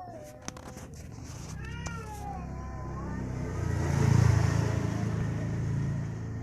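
An animal's short wavering cry about a second and a half in, among a few sharp clicks. After it, a low rumbling noise builds to its loudest a little past the middle and then eases off.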